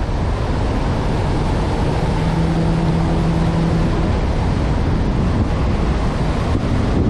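Wind rushing over the microphone of a tail-mounted camera on a large electric RC airplane in flight. A low steady tone rises out of the rush between about two and four seconds in.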